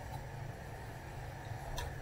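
Steady low hum with one light click near the end as the drive unit's metal frame is handled during disassembly.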